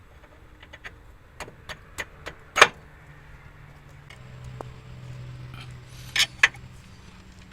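Metal tools and parts clinking and knocking, a quick string of light clicks ending in one loud clank, then two sharp clacks near the end. Under them a low steady hum comes in about four seconds in and runs for about three seconds.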